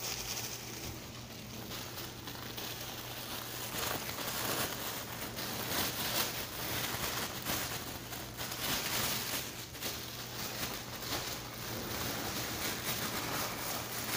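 Thin disposable plastic gloves crinkling and rustling as they are handled, in irregular bursts, over a faint steady low hum.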